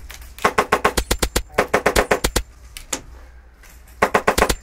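Airsoft rifle firing on full auto in short bursts of about ten shots a second: two bursts back to back, a single shot, then another burst near the end.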